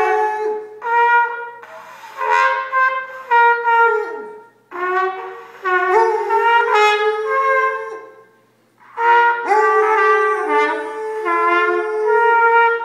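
Trumpet playing a slow Christmas tune in held notes, phrase by phrase with short breaks, while a basset hound howls along, its howls sliding in pitch against the steady trumpet notes.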